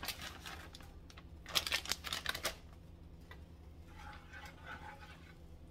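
Plastic bag of shredded cheese crinkling and rustling as the cheese is shaken out into a skillet of cream sauce, a quick run of crackles over the first two and a half seconds. After that it goes quieter as a wooden spoon stirs the cheese into the sauce.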